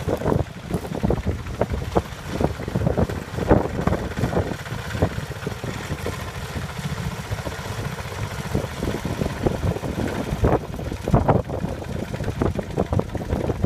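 Tractor engine running, with wind buffeting the microphone in irregular low rumbles.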